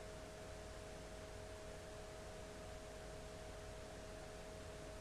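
Faint steady hiss with a two-tone electrical hum, unchanging throughout; no stirring or cooking sounds are heard.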